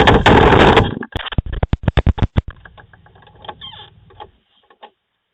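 A door being pounded: a second of loud, rough noise, then a fast run of about eight hard bangs, dying away into a few faint clicks.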